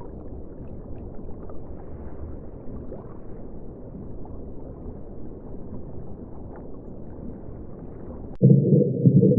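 Muffled underwater ambience: a steady low rush of water noise with faint clicks. About eight seconds in it cuts abruptly to a louder, deeper, muffled rumble.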